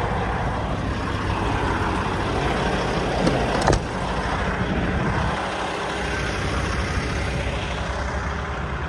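Semi-truck's diesel engine running steadily, with a sharp click about four seconds in.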